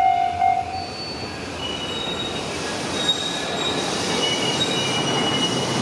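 Electronic level-crossing warning bell ringing in even beats, stopping about a second in; then a passing train's wheels squeal on the rails in several high steady tones over a growing rumble.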